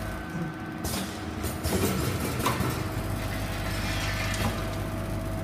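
Snack packing machine running: a steady motor hum with the dry rattle and rustle of fried chips moving around the stainless-steel spiral feeder bowl.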